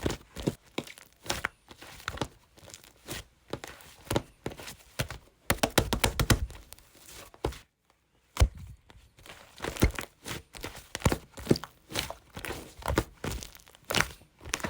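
Hands kneading, pressing and stretching slime, making irregular sticky clicks, crackles and squishy pops. A dense run of squelches comes about halfway, then a short pause and a sharp snap.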